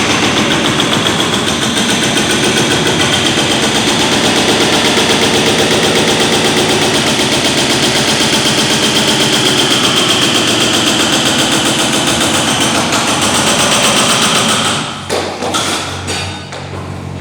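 Demolition breaker hammering rapidly and steadily, then stopping about fifteen seconds in, leaving a diesel engine running.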